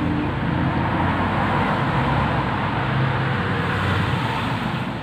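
A car driving past on the road, its engine and tyre noise building to a peak about three to four seconds in and easing off near the end.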